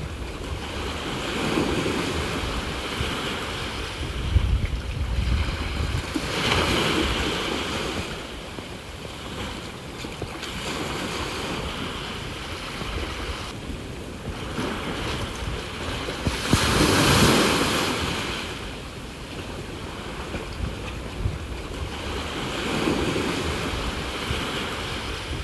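Sea waves washing onto the shore, the surf swelling and fading about five times, loudest about two-thirds of the way through. Wind buffets the microphone with a low rumble at times.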